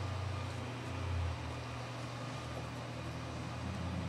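Steady low hum with an even hiss: background room noise such as a fan or air conditioning.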